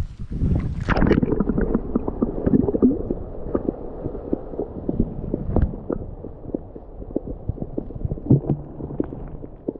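Muffled underwater sound from a camera held below the pond's surface: water sloshing and gurgling with many small knocks and clicks, as a hand holds a largemouth bass in the water. A brief splash in the first second as the camera goes under.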